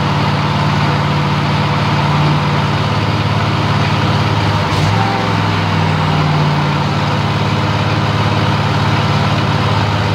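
Cub Cadet riding mower's 25 hp Kohler V-twin engine running steadily, with a brief wobble in its note about five seconds in. It is being run after an oil and filter change so the new oil can be checked.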